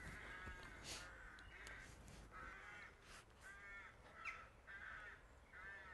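Crows cawing faintly in the background, a run of about ten short caws one after another.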